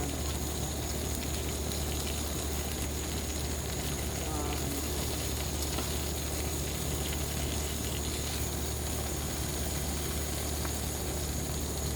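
Ninja Woodfire electric grill running with a steady low hum and an even hiss, with a thin high whine over it.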